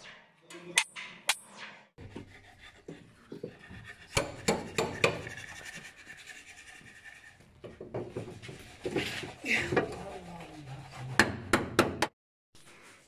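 Hammer-and-chisel blows and scraping on car-body steel as rusted floor-pan sheet metal is cut away. Sharp metallic knocks come in several separate runs, with clatter and scraping between them.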